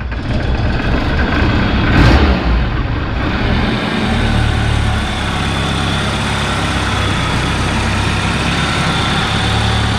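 Iran Khodro Samand's Peugeot petrol engine idling steadily with the bonnet open, with a brief louder burst of noise about two seconds in. It runs without its manifold absolute pressure sensor, which the owners found had been removed.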